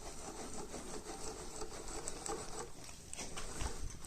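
The hand-worked slide of a homemade lathe being moved along its ways: a light, irregular mechanical rattle and rubbing of metal parts, with a few sharper knocks about three and a half seconds in.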